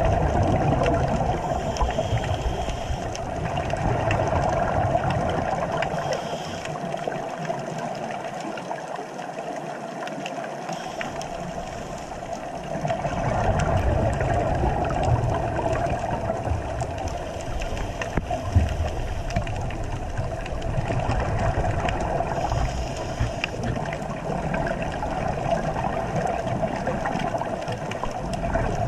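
Underwater sound picked up by a diver's camera: a steady watery hiss and hum with scattered faint clicks. Every several seconds comes a brief rush of hiss, the diver's exhaled scuba bubbles.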